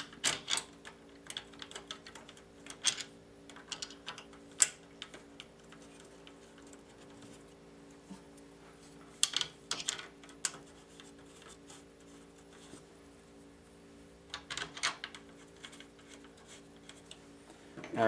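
Scattered light clicks and taps of screws and a plastic case fan frame being handled against a steel PC case as the fan is set into place, coming in a few short clusters, over a faint steady hum.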